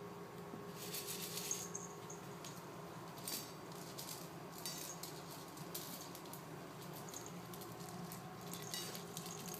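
Kitten eating dry kibble from a stainless steel bowl: crunching, with kibble clinking against the metal, in short bursts every second or so.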